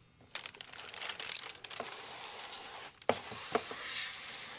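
Window tint film crinkling and crackling as it is handled, with a short break about three seconds in.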